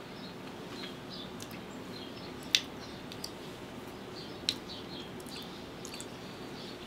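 Quiet eating sounds: a spoon clicking a few times against a ceramic mug of cake, sharpest about two and a half seconds in and again near four and a half seconds, with faint mouth noises over a low steady room hum.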